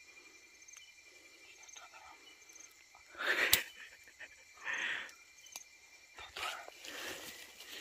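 Rustling and handling noises of hands, leaves and clothing while a caught mouse is held, loudest about three seconds in and ending in a sharp click, with two shorter rustles after. Night insects chirp steadily in the background.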